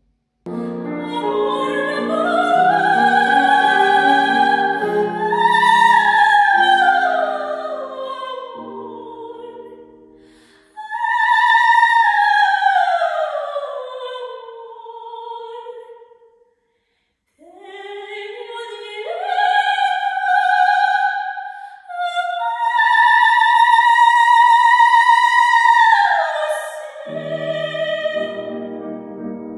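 A soprano sings high, sustained operatic lines with piano. The voice holds notes near the top of its range and sinks in long, slow downward slides. Piano chords sound under the first part and return near the end; in between the voice is mostly alone, with a brief cut to silence about halfway through.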